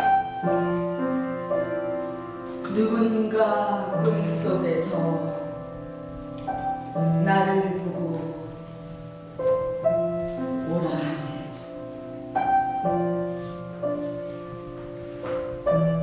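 Slow piano music playing, with sustained notes struck one after another.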